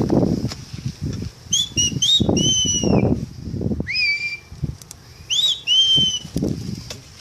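Gusts of wind buffeting the microphone, with short whistled bird calls repeated many times, each a quick upward swoop that settles on a held note.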